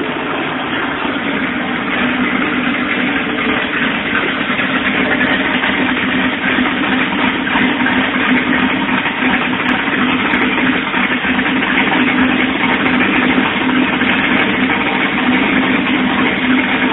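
Turbocharged Alfa Romeo V6 engine in a GTV idling steadily, on one of the first runs of the freshly built turbo engine.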